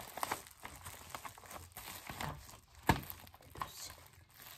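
Foil wrapping on a small package crinkling and crackling as it is handled and turned over, with one louder crackle about three seconds in.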